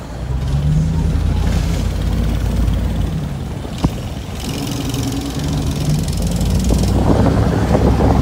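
Pickup truck engines rumbling at low speed as a truck cruises past, with the pitch rising slightly a couple of times as it pulls on. There is a single sharp click about four seconds in.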